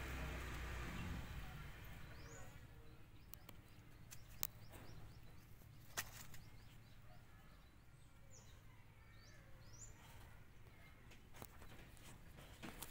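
Faint outdoor garden ambience with a few short, high bird chirps and a couple of sharp clicks, the clearest about four and a half and six seconds in.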